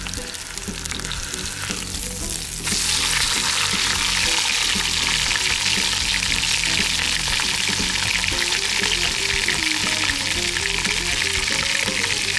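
Beef roast searing in hot oil in a cast iron Dutch oven, a steady sizzle that jumps louder about two and a half seconds in.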